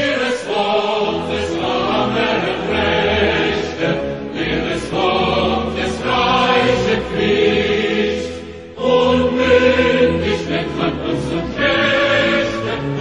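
Choral music: a choir singing in sustained phrases, with a brief drop in loudness just before nine seconds in.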